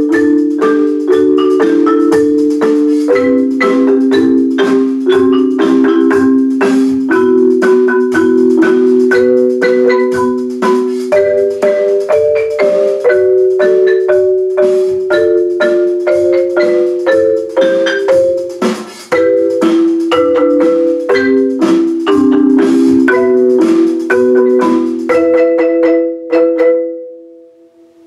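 Marimbas and other wooden-bar mallet instruments played together in a fast, rhythmic percussion-ensemble passage. Near the end the music stops on a final chord that rings briefly and dies away.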